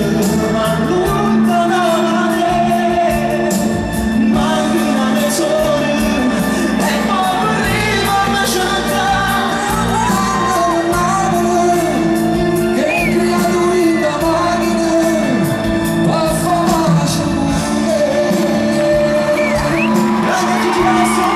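Live pop music: a male voice singing over sustained keyboard chords, heard through the concert PA from among the audience, with occasional shouts from the crowd.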